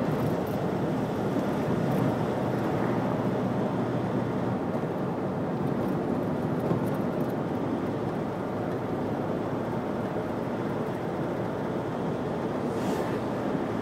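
Steady road noise of a car driving in city traffic: a low, even rumble of tyres and engine.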